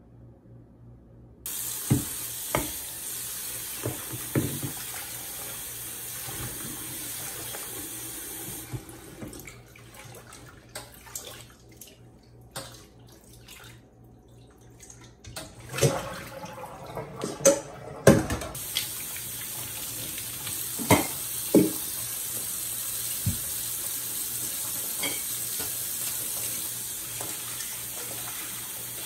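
Kitchen tap running into a stainless-steel sink while leafy greens are rinsed in a bowl, starting about a second and a half in. The water stops for several seconds midway, with sharp knocks and clatter of a metal bowl and colander against the sink, then runs steadily again.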